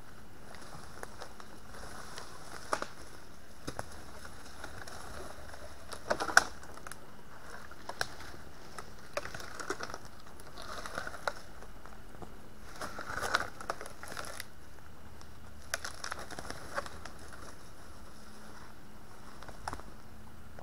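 Dry twigs and sticks crackling and snapping, with rustling leaf litter, as a person moves about and handles brush on a forest floor. The sounds come as scattered sharp cracks and short crackly clusters, the loudest crack about six seconds in and a longer burst of crackling around thirteen seconds, over a steady faint hiss.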